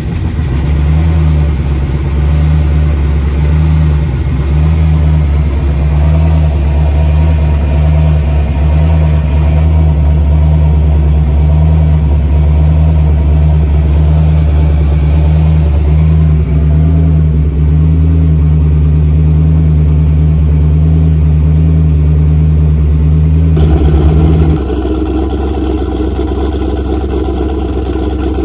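Turbocharged LS V8 in a Fox-body Mustang idling steadily just after a cold start, with a deep, even drone. About 24 seconds in the tone changes abruptly to a rougher, more open note.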